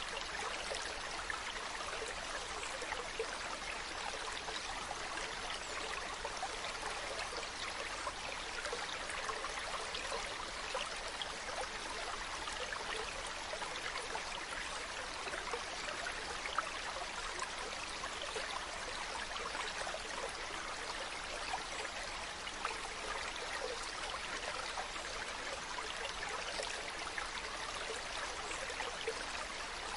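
Mountain stream running over rocks: a steady babbling and trickling rush of water with small splashes scattered through it.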